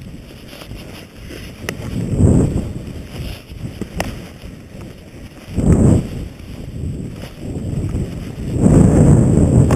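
Wind rushing over a skier's body-worn camera microphone and skis running through powder, swelling into three loud low rushes a few seconds apart as the skier turns downhill, with a few light clicks.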